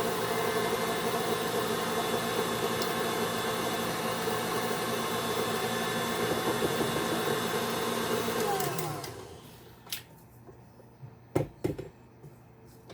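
Electric stand mixer beating thick royal icing, running steadily, then switched off about nine seconds in, its motor winding down with a falling whine. A few light knocks follow near the end.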